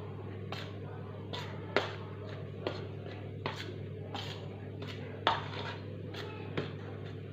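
Light scrapes and taps against a stainless steel bowl as dry flour is mixed by hand, irregular and about one every second, over a steady low hum.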